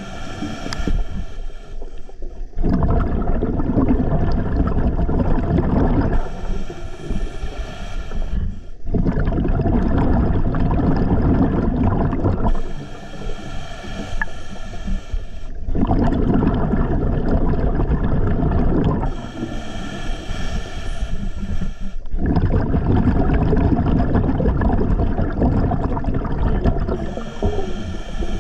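Scuba diver breathing underwater through a regulator: a hissing inhalation with a faint whistling tone alternates with the low rumble of exhaled bubbles. The cycle repeats steadily, about every six and a half seconds.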